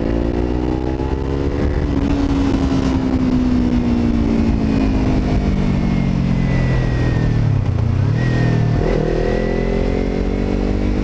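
Kawasaki motorcycle engine under way, heard from the rider's helmet. Its pitch rises briefly, then falls slowly as the bike slows, dips sharply around eight seconds in and climbs again as it accelerates, over low wind rumble on the microphone.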